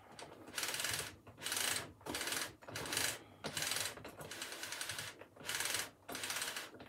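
Hand-cranked roller mechanism of an original Hitachi train destination blind, rattling in short repeated spurts, about one and a half a second, as the blind is wound on from one destination to the next.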